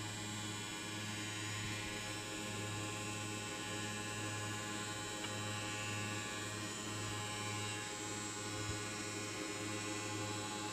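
Three-blade wet tile cutting machine running: a steady electric motor hum that pulses about once a second.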